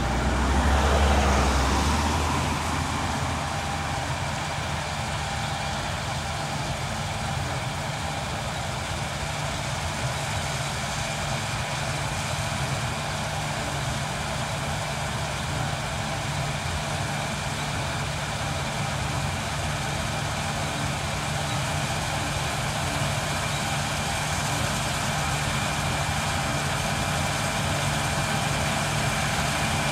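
John Deere combine harvester running steadily while harvesting barley, a constant engine and machinery hum with a thin high whine. It is louder in the first couple of seconds, then settles to an even level.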